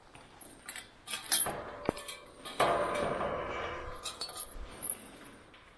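Metal clinks and rattles of gear and fence as a hunter climbs over a pipe-and-barbed-wire fence with a rifle. There is a sharp clink about a second in, then a rustling scrape of clothing and gear that fades over a second or so.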